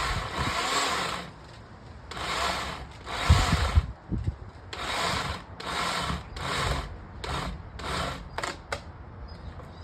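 Saw cutting through a dead tree branch in back-and-forth strokes, about nine in all, growing shorter and quicker near the end, with a few low knocks partway through.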